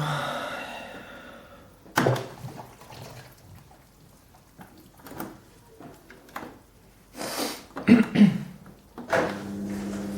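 A few knocks and clunks from an LG washing machine. About nine seconds in, a steady electric hum starts with water running, typical of the drain pump switching on.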